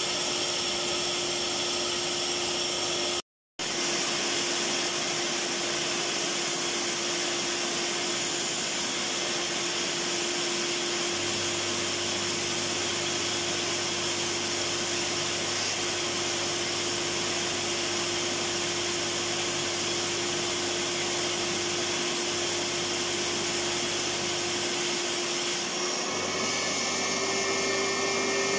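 Electric vacuum cleaner running steadily: a continuous rushing of air over a steady motor hum. It drops out to silence for a moment about three seconds in, and the hum steps up slightly in pitch near the end.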